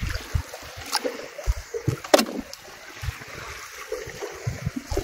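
Choppy sea lapping against the hull of an inflatable boat, with irregular low thumps and two sharp clicks, one about a second in and one about two seconds in.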